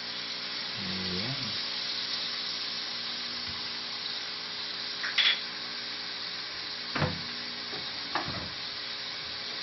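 Soy sauce and fish sauce, just poured into a hot wok of sautéed vegetables, sizzling steadily in the oil. A few short knocks sound about five, seven and eight seconds in.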